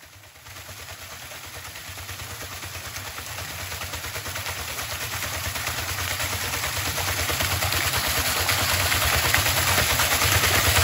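Water splashing off a turning homemade waterwheel into a pool, a steady rushing wash with a fast, even churning underneath, growing steadily louder.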